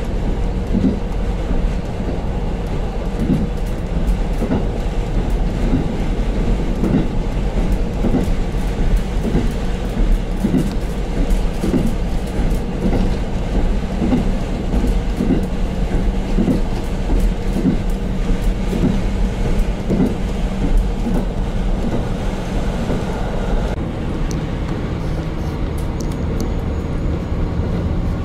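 KiHa 40 diesel railcar running along the line, heard from inside the car: a steady diesel drone and hum with the wheels thumping over rail joints in an uneven rhythm. The thumps thin out near the end.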